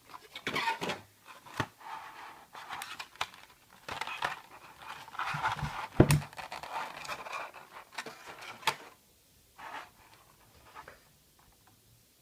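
Model airplane's cardboard box and plastic packaging being opened by hand: rustling, scraping and sharp clicks and knocks. It dies down after about nine seconds, leaving a few faint clicks.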